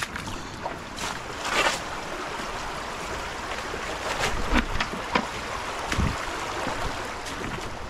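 Creek water running steadily, with several short sharp sounds from wading and handling finds in the water, one with a low thud about six seconds in.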